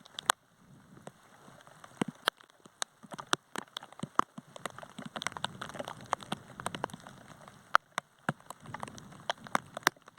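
Rain falling, with irregular sharp drops landing close by, several to a few each second over a soft patter.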